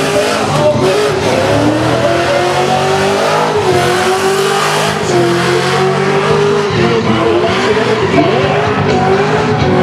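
FPV GT's V8 held at high revs in a burnout, its pitch wavering up and down as the throttle is worked, over the hiss and squeal of the spinning rear tyres.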